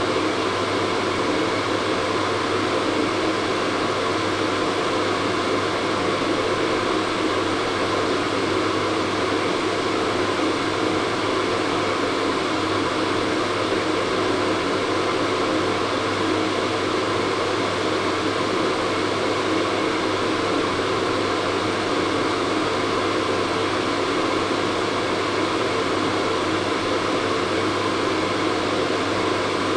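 Hair dryer running steadily on one setting: an even blowing rush over a low motor hum, with no change in speed.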